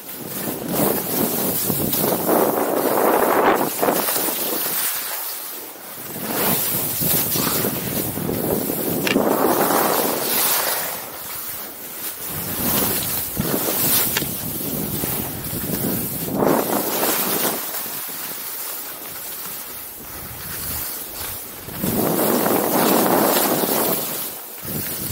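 Wind buffeting the camera microphone while skis scrape and carve across packed snow. The scraping hiss swells and fades every few seconds.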